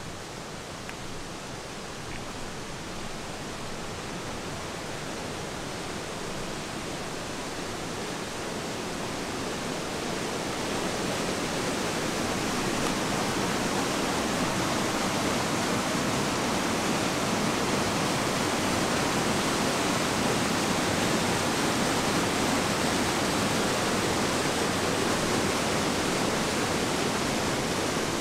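Stream of white water rushing and cascading over rocks, a steady rushing sound. It grows louder over the first ten seconds or so as it is approached, then holds steady.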